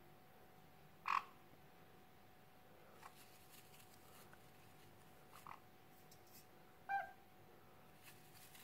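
Black-headed caique parrot giving short calls: a loud one about a second in, a softer double call past the middle, and another loud one, falling in pitch, near the end, with faint clicks in between.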